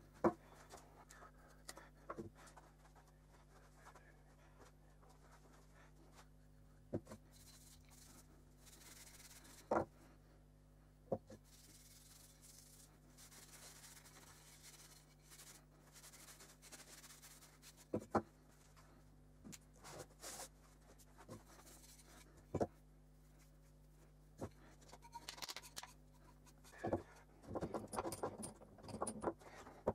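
Workbench handling noise: scattered light knocks and clicks as hammer parts and tools are picked up and set down on a rubber work mat, with soft cloth rubbing on the hammer handle through the middle, over a faint steady hum. Near the end comes a cluster of quick small clicks from handling metal parts.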